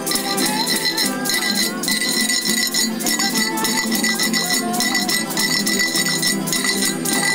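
Spanish folk string ensemble of strummed guitars and Spanish lutes playing a dance tune, with a cut-glass bottle scraped in a steady rhythm as percussion.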